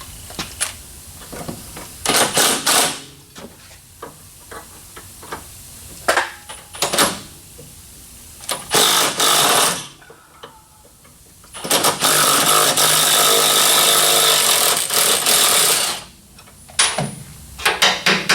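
Pneumatic impact wrench hammering in three short bursts, then in one run of about four seconds, spinning off a torch-heated sway bar end link nut with a burnt-out nylock insert.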